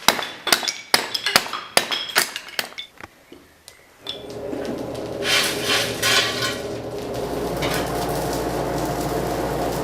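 Steel clanking and ringing in a blacksmith's workshop, a quick irregular run of metal-on-metal strikes over the first three seconds. From about four seconds it gives way to a steady rushing noise with a low hum, typical of a forge fire with its air blower.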